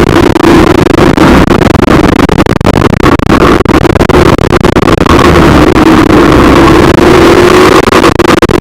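A vehicle running on the road, with a steady engine hum under heavy, rushing wind and road noise; the engine note rises slightly near the end.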